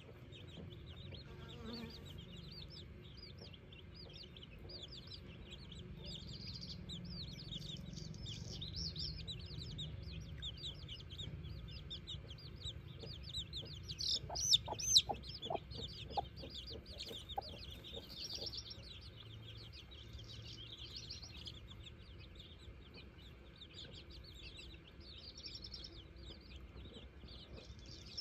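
Domestic chicks peeping continuously in rapid, high chirps. About halfway through, a broody hen clucks several times, louder and lower than the chicks.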